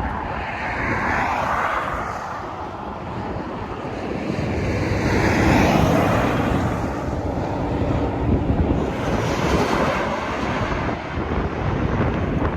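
Jet airliner's engines passing, the sound swelling to its loudest about halfway through, with wind buffeting the microphone.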